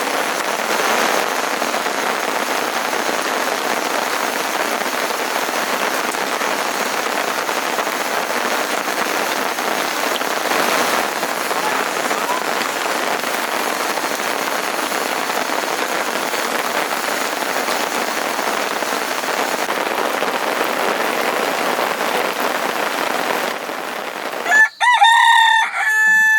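Steady rain falling, then near the end a rooster crowing, one long call.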